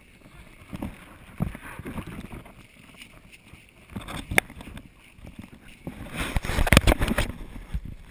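Irregular knocks, creaks and rubbing from a handheld action camera and the riders' seat as an elephant walks, with a louder stretch of scraping and rustling about six to seven seconds in while the camera is moved.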